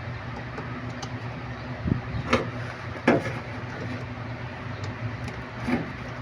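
Washing machine parts being handled and fitted by hand: a few knocks and clicks, the loudest about three seconds in, over a steady low hum.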